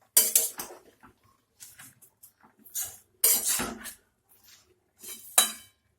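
Metal utensil stirring and scraping in a pan of cooking spinach and vegetables, in several irregular bursts of clattering, the loudest about three seconds in.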